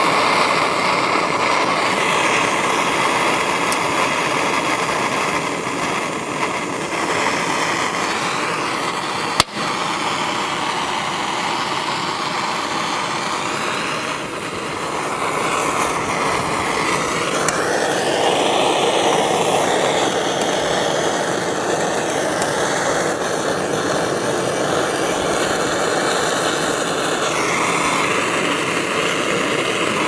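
Handheld propane torch burning with a steady rushing hiss, its tone shifting partway through as the flame moves over the microwave's insides. A single sharp pop about nine and a half seconds in.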